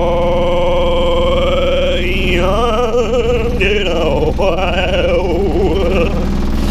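A man's voice held in a long sung note, then rising and breaking into a rapid warble, shaken by the vibration plate he is standing on. Under it the vibration plate's motor hums steadily.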